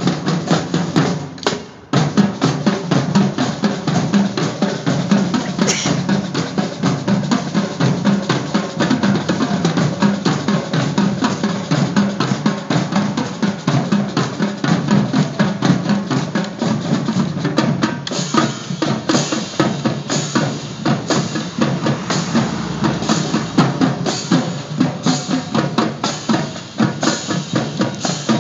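High school marching drumline playing its show piece: dense, rhythmic drumming. The drumming drops out briefly about two seconds in, and regular bright accents come in about two-thirds of the way through.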